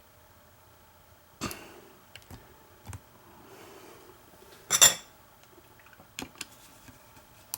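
Scattered metal clicks and clinks from a picked wafer-type car ignition lock cylinder and the steel pick and tensioner in it as they are handled, with the loudest click about five seconds in.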